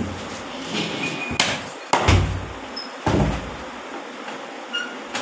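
A heavy cleaver blade chopping into a large river fish on the floor: three hard strikes, the last two landing with a dull, heavy thud.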